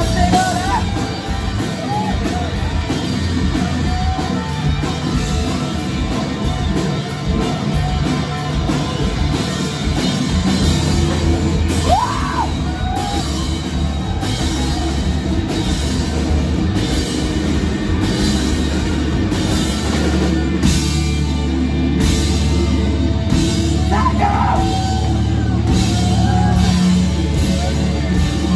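Live rock band playing loudly in a small club: electric guitars, bass guitar and drum kit, with intermittent singing.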